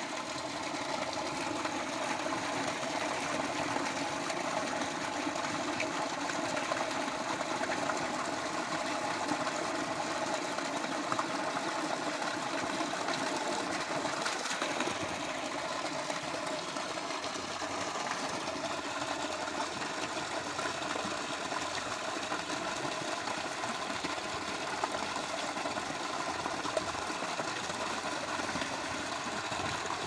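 Pumped water gushing out of a pipe into a concrete cattle trough, splashing steadily onto the water surface as the trough fills.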